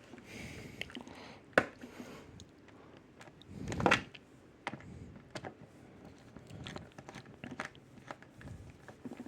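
Scattered small clicks and taps of plastic and metal from handling a laptop's bottom panel and its screws during reassembly, with a sharp click about a second and a half in and a louder crunchy click about four seconds in.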